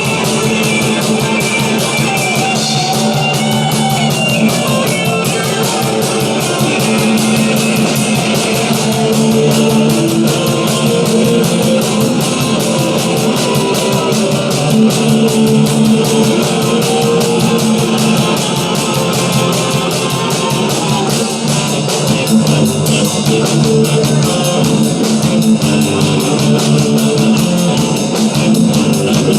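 A rock band playing loudly, with guitar and drum kit over a steady cymbal beat.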